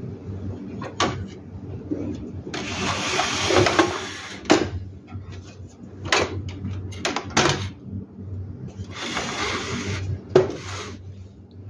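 Hard plastic clicks and knocks from an HP laser printer's cover and paper tray and a toner cartridge being handled. Two longer rough, hissing stretches of about a second and a half each come among them.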